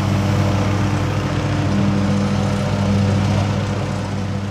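Wheeled excavator's diesel engine running steadily, a little louder from about two seconds in.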